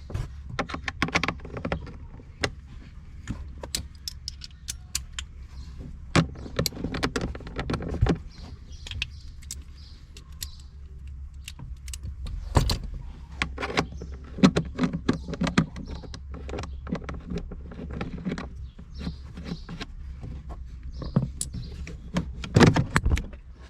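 Irregular clicks, taps and rattles of plastic trim parts and small screws being handled, as the cabin air filter cover under a car's dashboard is unfastened and taken off, over a steady low hum.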